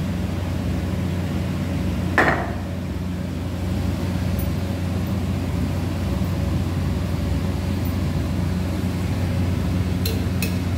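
Steady low electrical hum, with one sharp clank of a kitchen utensil about two seconds in and a few light clicks near the end.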